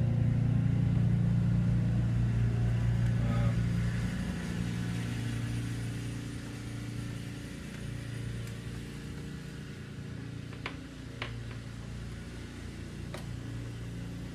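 A steady low engine hum, loud for the first four seconds or so and then fading to a quieter drone, with three sharp small clicks near the end.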